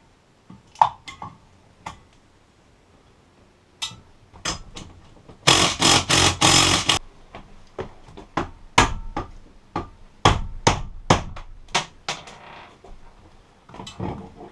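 Hand tools working on a boat's steering helm: scattered clicks, a second and a half of rapid clicking about five and a half seconds in, then a run of sharp knocks on metal.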